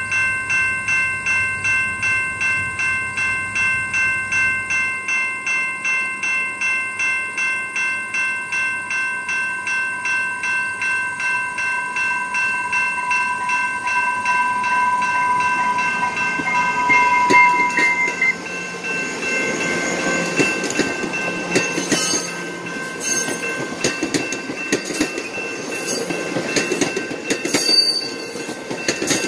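Level-crossing warning bell ringing at about two strokes a second as an AMT/exo commuter train approaches. A little past the middle the bell fades out and the passing train takes over: a loud rolling rumble with wheels clacking over the rail joints.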